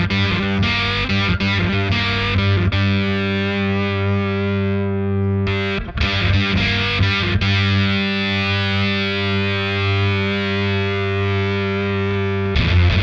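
Electric guitar with humbucker pickups, played through a FET compressor pedal with its low end rolled off into a Catalinbread Dirty Little Secret overdrive: a few picked chord hits, then chords held and sustaining for several seconds, with fresh strums near the end.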